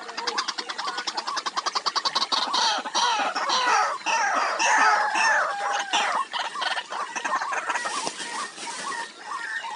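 White-breasted waterhens calling. A fast, rattling run of notes for the first few seconds gives way to a loud jumble of croaking, clucking calls, then softer repeated notes near the end.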